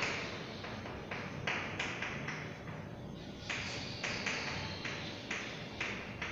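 Chalk tapping and scratching on a chalkboard while words are written: short irregular strokes, a few a second, with a brief pause near the middle.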